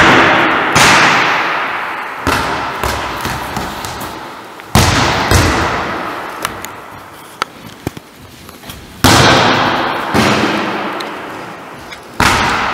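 Volleyball being served overhand with one hand: about five sharp smacks of hand and ball, each ringing out in the long echo of a large gymnasium hall.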